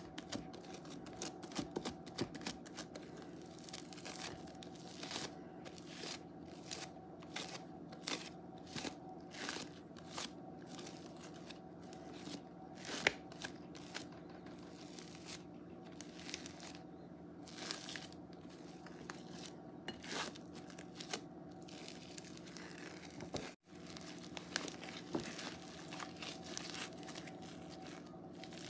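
Crunchy foam slime, slime packed with foam beads, being squeezed and kneaded by hand, the beads giving many short crackles and pops at an irregular pace. The sound drops out briefly near the end.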